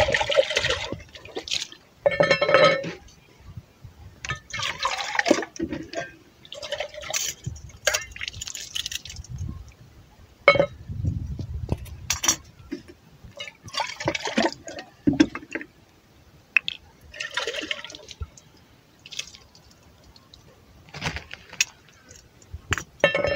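Water poured and splashing in short bursts from a large plastic jug, with a few light clinks of metal.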